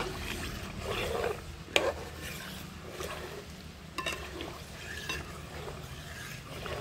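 A spoon stirring herbs and leaves in a pan of coconut oil, with three sharp clinks of the spoon against the pan.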